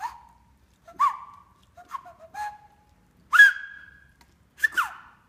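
A man whistling a string of short notes with pauses between them, several sliding in pitch. The loudest note comes about three and a half seconds in, and a falling slide comes near the end.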